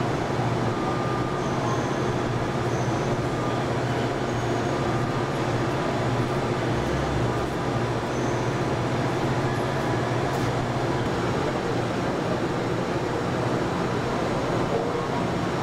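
Steady low hum and hiss of a large assembly hall's ambient noise, unchanged throughout, with a faint tap about ten seconds in.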